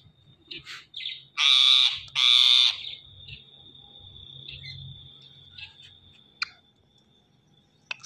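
Indian ringneck parakeets calling: a few short chirps, then two loud harsh screeches back to back about a second and a half in. A faint, thin, high steady whistle lingers for several seconds afterwards, broken by a single sharp click.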